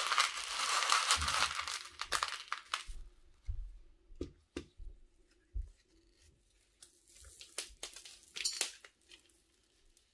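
Crinkling and rustling of handling noise, loudest in the first three seconds and again near the end, with a few small clicks and knocks in between, as white aquarium gravel is handled and placed on top of a potted plant's soil.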